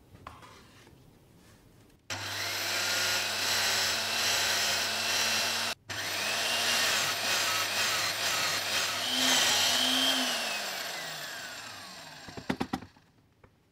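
Electric drill in a drill-press rig running and boring into plywood with a Forstner bit, with a brief break near the middle. About ten seconds in the motor switches off and its whine falls away as it spins down, followed by a few sharp clicks.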